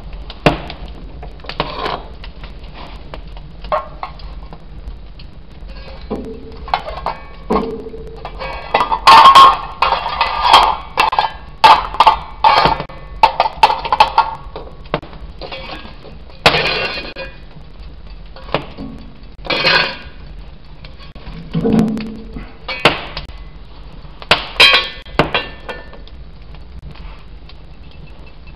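Steel striker scraping down a flint in irregular strikes, each a sharp metallic clink and scrape, with a quick run of strikes about a third of the way in and scattered single strikes after.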